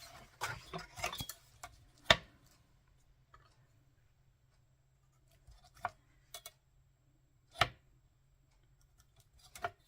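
Scattered clicks and taps of paper and craft tools being handled on a desk while a page is measured. The sharpest click comes about two seconds in, another about three-quarters of the way through, with a few fainter taps between.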